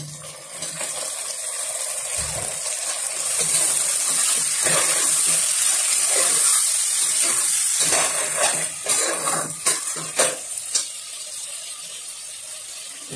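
Freshly added tomatoes frying in hot oil in a pressure cooker, a steady sizzle that builds over the first few seconds. In the second half a slotted spoon stirs, scraping and knocking against the cooker several times, and then the sizzle eases.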